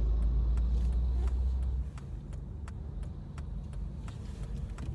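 Car cabin noise: a low road and engine rumble that falls away sharply about two seconds in, with faint, evenly spaced ticks underneath.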